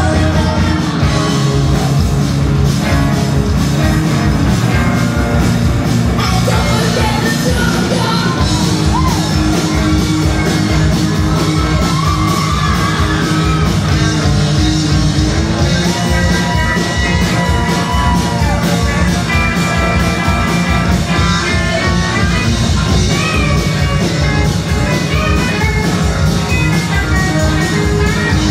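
Live rock band playing loud and steady, with drum kit, electric guitars and a singer's vocal over the top.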